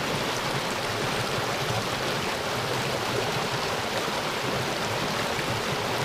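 Small mountain stream running over rocks: a steady rush of water.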